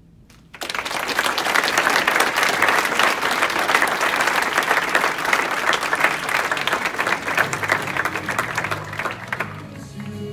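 Audience applauding. It breaks out suddenly about half a second in and dies away near the end.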